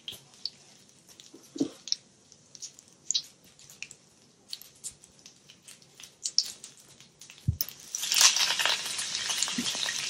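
Mustard and cumin seeds crackling in hot oil, with scattered sharp pops. About eight seconds in, curry leaves hit the oil and set off a loud sizzle that carries on.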